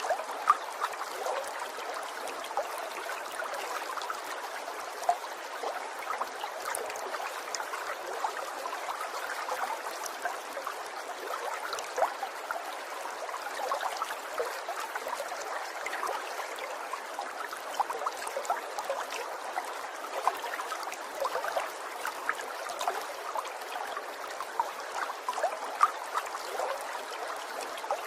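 Small stream of water trickling and burbling steadily, with many little droplet plinks and splashes scattered through it.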